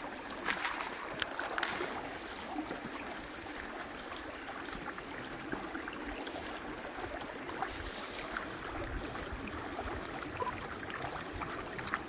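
Stream water running with a steady rush, with a few short crunches or knocks in the first two seconds.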